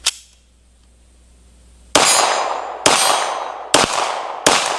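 A sharp click, then about two seconds later four 9mm pistol shots from a Glock 17-pattern pistol (Polymer80 frame, Rock Island Armory slide), a little under a second apart, each trailing off in a long echo.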